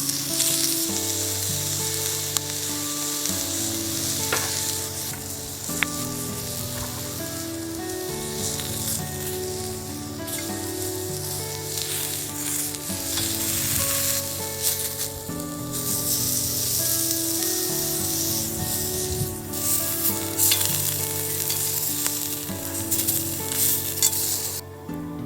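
Food sizzling as it fries in a pan, a steady hiss that cuts off suddenly near the end, with background music playing under it.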